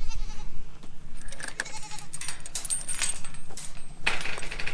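Boer goats bleating as the mob is moved along, with a run of clicks and rattles partway through.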